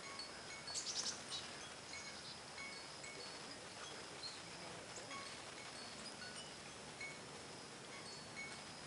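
Songbirds calling, led by a northern cardinal: a quick run of sharp chips about a second in, then scattered short high pips over a faint steady high hum.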